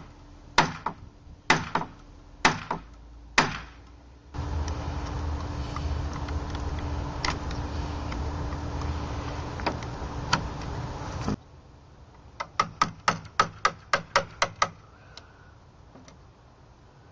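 Claw hammer striking a latch mortise marker set against the edge of a wooden gate: five sharp blows in the first few seconds, cutting the outline of the deadbolt latch's faceplate recess. A steady hiss follows, then near the end a quick run of about a dozen light taps.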